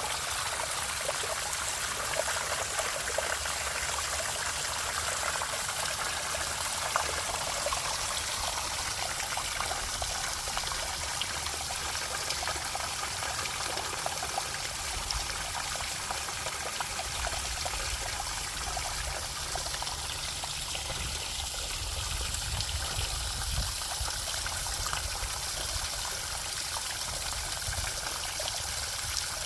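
Water trickling and flowing steadily, like a small stream or runoff over stones. A low rumble comes in for a while around the middle.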